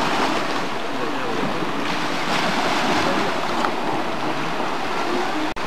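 Steady rush of waves washing against shoreline rocks, mixed with wind on the microphone. The sound drops out for an instant near the end.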